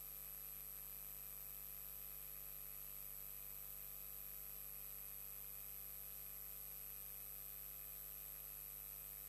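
Faint, steady electrical hum and hiss with several fixed tones and nothing else: the background noise of the live stream's audio.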